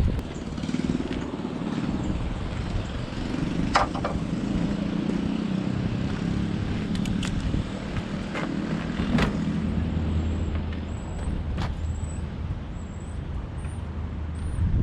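A motor vehicle's engine running steady, its pitch dropping lower about two thirds of the way through, with several sharp clicks and knocks of metal or tools.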